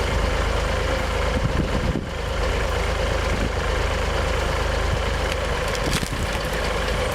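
Tractor engine running steadily while powering a hydraulic log splitter and shear attachment, with a brief sharp knock about six seconds in.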